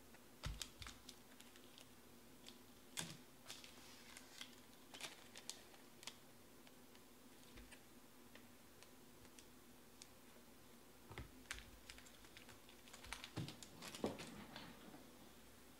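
Faint, irregular clicking of a computer keyboard being typed on, a few keystrokes at a time with short pauses, over quiet room hum.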